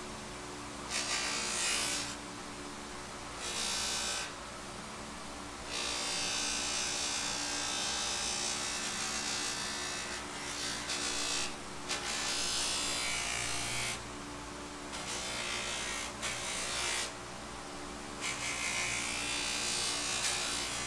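Bench grinder fitted with buffing wheels running steadily with its motor hum, and a hiss that comes and goes in about five spells as a hammer is held against the spinning wheel.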